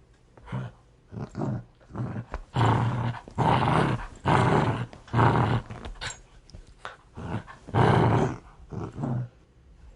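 Dog growling aggressively in a string of separate growls of varying length, broken by short pauses, the loudest and longest coming near the end.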